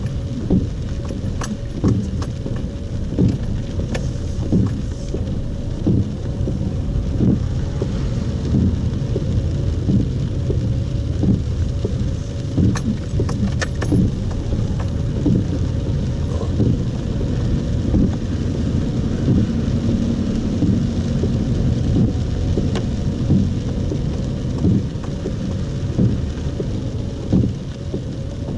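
Car moving on wet streets in heavy rain, heard from inside the cabin: a steady low rumble of engine, tyres and rain on the car, with regular beats about once a second as the windscreen wipers sweep.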